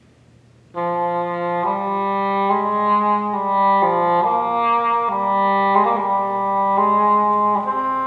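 Chamber wind ensemble of flutes, oboes, clarinets, horns and bassoons entering together about a second in, after a moment of near silence. It plays a slow succession of full held chords, changing about once a second.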